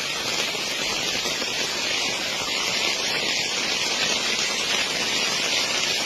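Rushing of a fast-flowing, rain-swollen river, a steady hiss of water with no breaks.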